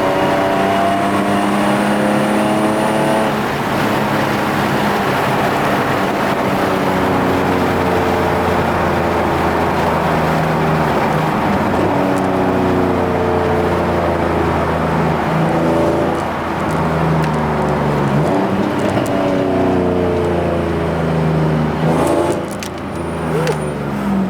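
Nissan Z's engine heard from inside the cabin as the car accelerates. The revs climb and drop back at gear changes several times.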